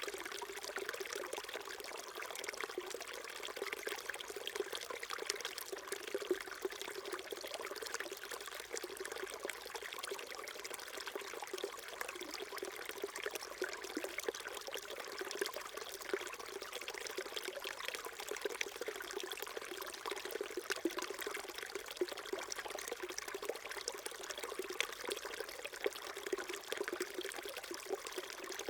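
Small mountain stream babbling and trickling steadily over rocks, with many small splashes.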